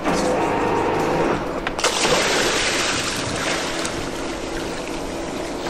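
A boat's engine hums, then about two seconds in a scuba diver drops off the side into the sea with a sudden splash. The splash is followed by a rush of frothing, churning water that slowly dies down.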